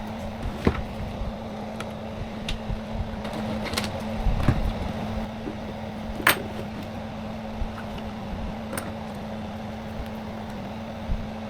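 A steady hum with scattered sharp clicks and light knocks, the sounds of parts and tools being handled during the air fryer repair; a cluster of low knocks falls about four seconds in.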